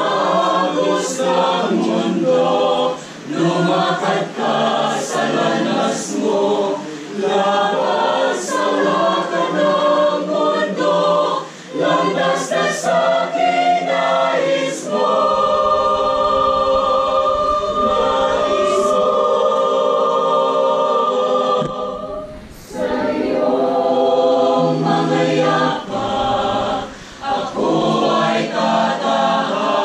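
Mixed church choir of women's and men's voices singing together. Partway through, the voices hold one long chord for several seconds, then move back into shorter phrases with crisp 's' sounds.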